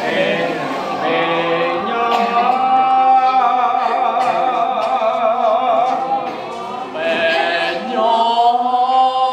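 A group of voices singing a song together without instruments, holding long notes, with a short break for breath about two-thirds of the way through.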